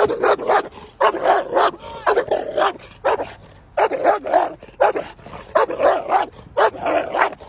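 A large dog barking in rapid, repeated barks, about three a second, without pause: protective warning barks at a stranger reaching for the car door.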